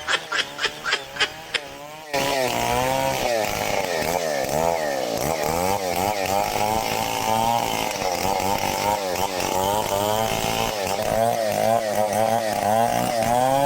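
For about the first two seconds, a fading series of quick short pulses, several a second. About two seconds in, a two-stroke chainsaw cuts in abruptly and runs at high revs while cutting timber, its engine pitch rising and falling under load.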